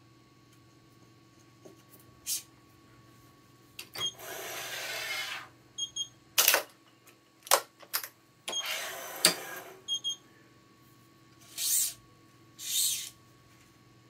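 Hands at work on a Yonex ES5 Pro electronic badminton stringing machine, over a faint steady hum: string or clamp parts pulled and slid in two hissing strokes of more than a second each, sharp clicks from the clamps and tension head between them, and two shorter rasps near the end.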